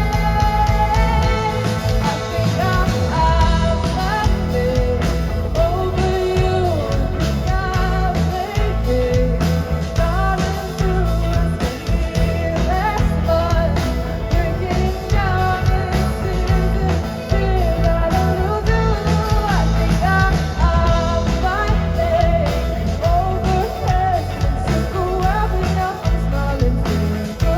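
Live rock band playing an instrumental passage: a bending lead electric guitar line over bass guitar and a drum kit.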